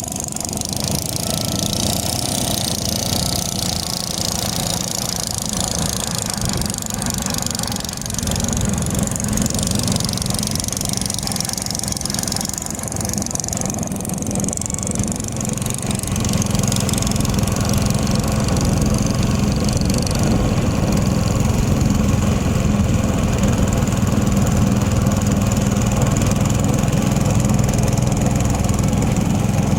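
Small fishing boat's engine running steadily while under way, getting louder about halfway through as it speeds up.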